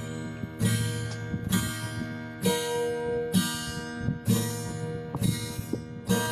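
A guitar strummed slowly by a beginner, about one strum a second, each chord left to ring out before the next.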